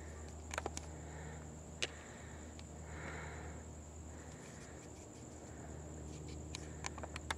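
Quiet outdoor night ambience: a low steady hum and a thin, steady high-pitched tone, with soft shuffling sounds about once a second and a few light clicks, most of them near the end.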